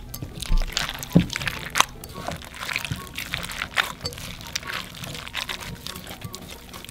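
Hands scooping and squeezing a glass bowl of wet Orbeez water beads: a continuous run of quick wet clicks and squelches as the slippery beads rub against each other and the glass.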